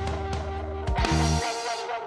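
Background instrumental music; its low bass cuts out about one and a half seconds in.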